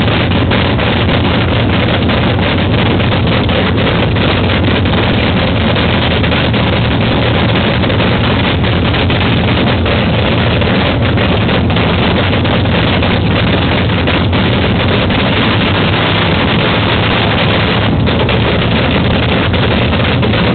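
Nostalgia funny car's supercharged nitro-burning V8 idling with its cackling exhaust note, loud and steady without let-up.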